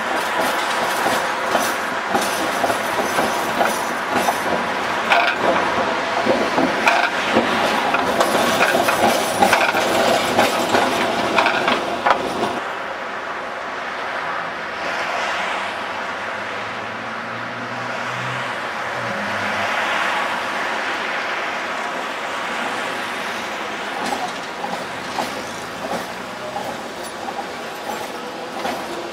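Budapest type UV tram set running past on street track, its wheels clattering and clicking over rail joints and points for the first dozen seconds, then fading. Another UV set draws near and passes close in the last few seconds, and the clicking comes back.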